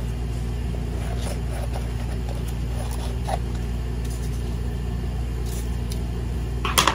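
Scissors cutting through glossy photo sticker paper, with faint snips and paper rustling over a steady low background hum; a louder brief rustle or knock near the end.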